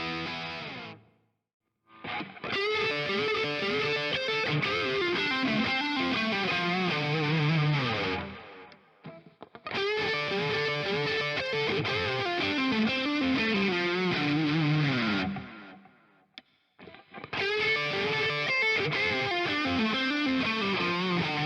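Vintage V6H Icon HSS electric guitar played solo with a distorted tone. A chord dies away at the start, then the same descending phrase is played three times, with a short pause between each.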